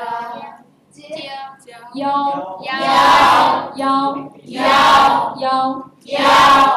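A woman and young voices singing a song together, with the group coming in loudly about three, five and six and a half seconds in.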